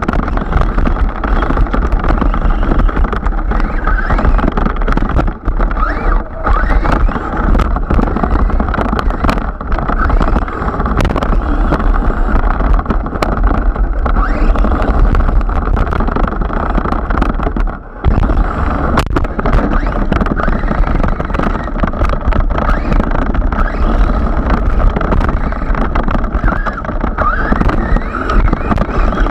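Team Magic E6 III electric RC car driving hard over rough grass, heard from on board: a wavering motor whine that rises and falls with the throttle under a steady rush of tyre and wind noise, with frequent knocks from bumps. The noise drops briefly about 18 seconds in.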